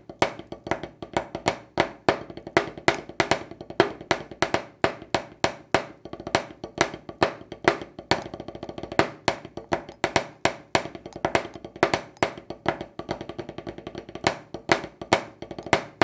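Snare drum played with drumsticks: a continuous pattern of sharp accented strokes with many quieter ghost strokes between them.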